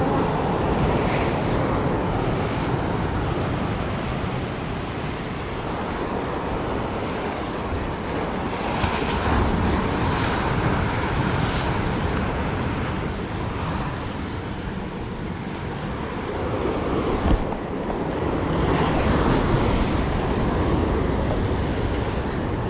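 Sea surf breaking and washing over rocks, swelling and fading as each wave comes in, with wind buffeting the microphone. One brief knock sounds late on.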